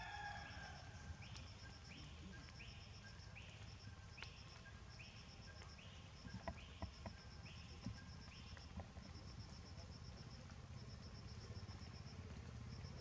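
Forest ambience: an insect chirping in rapid pulsed trains throughout, with a string of short falling calls, roughly two a second, that stops about nine seconds in, over a faint low rumble.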